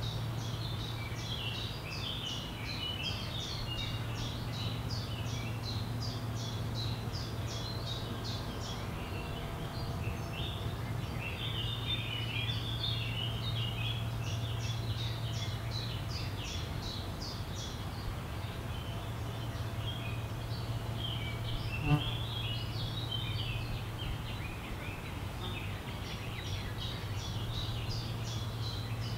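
Forest birdsong: several small songbirds chirping and trilling in quick, high repeated notes, over a steady low hum. A single sharp click sounds about 22 seconds in.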